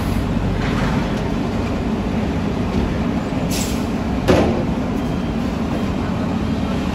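Diesel engines of heavy earthmoving machinery, a dump truck and an excavator, running steadily with a low rumble. Two short, sharp noises come near the middle.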